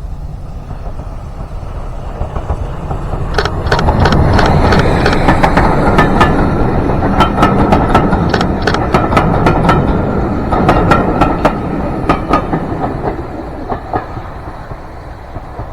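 A train passing close by: a rumble that builds over a few seconds and then fades, with many sharp clicks of wheels running over rail joints and a faint ringing tone from the wheels and rails.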